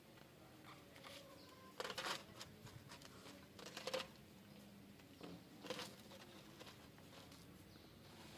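Mostly near silence, broken by a few short rustles and light knocks from plastic vacuum cleaner parts being handled, about two, four and six seconds in.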